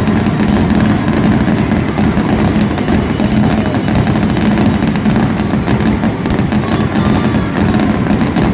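Stadium fireworks display going off: a dense, unbroken run of bangs and crackling bursts blending together.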